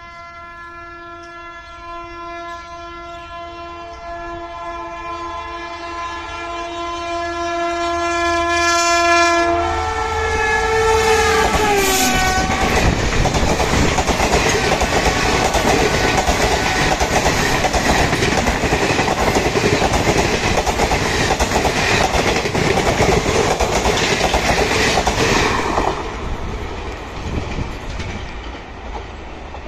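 A WAP-7 electric locomotive sounds its horn continuously as it approaches at high speed, with a second, higher tone joining a few seconds in. The horn's pitch drops as the locomotive passes, about ten seconds in. The coaches of the Garib Rath Express then rush past with loud wheel-on-rail noise, which falls away suddenly near the end as the last coach passes and the train recedes.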